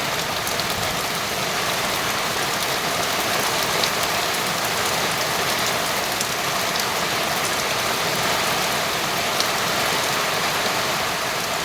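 Steady rain falling, an even hiss of many drops, with now and then a single louder drop ticking close by.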